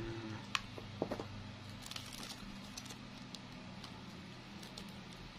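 Faint, scattered clicks and light rustles from hands handling a bunch of artificial flower stems and leaves, over a low steady hum.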